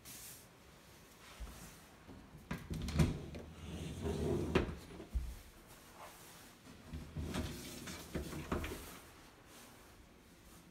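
Bifold closet doors being opened, a string of knocks and clacks in two bursts, the first about two seconds in and the second about seven seconds in.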